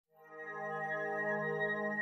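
Intro background music fading in from silence: held, steady chord tones.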